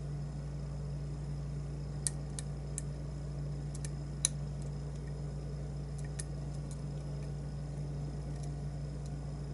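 Lock pick and tension wrench working the pins of a challenge lock: scattered small metallic ticks and clicks, irregular and a few per second at most, the sharpest about two and four seconds in, over a steady low hum.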